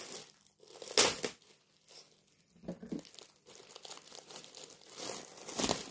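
Clear plastic poly bag crinkling and crackling as it is handled and pulled open, in irregular bursts: a sharp loud crackle about a second in, another near the end.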